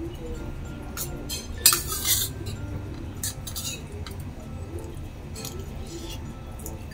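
Metal spoon clinking and scraping against a stainless steel bowl while eating, with several sharp clinks; the loudest comes about a second and a half in.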